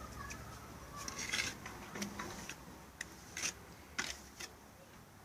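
Irregular light clicks and taps, about one a second, with a brief cluster of them in the first half.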